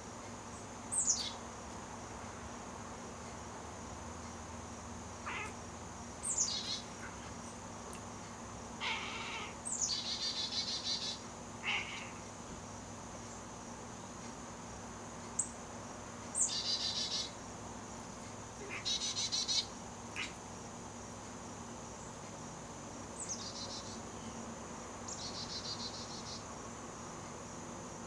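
Northern cardinal singing outside: repeated phrases of clear whistles that slide down in pitch, each run into a fast trill of quick repeated notes, with pauses of a few seconds between phrases. A few shorter, lower chirps fall between the phrases.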